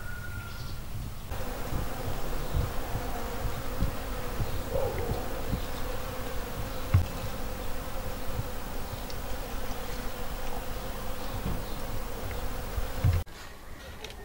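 Honeybees buzzing around blossoms, a steady hum that starts about a second in and cuts off abruptly shortly before the end.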